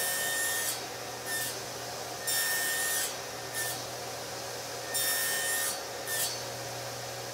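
Mini crosscut sled passing over a table saw blade as slots are cut in small Baltic birch plywood pieces: a rasping hiss on each pass. There are three longer pushes, each followed a moment later by a short return stroke, over a low steady hum.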